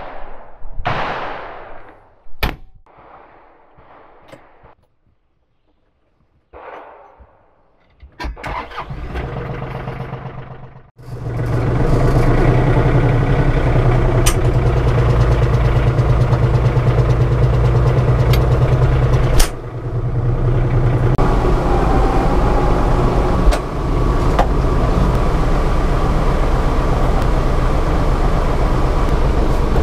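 RK37 cab tractor's diesel engine being cranked and starting about eleven seconds in, then running steadily, heard from inside the cab. A few clicks and knocks come before it, and sharp clicks sound now and then over the running engine.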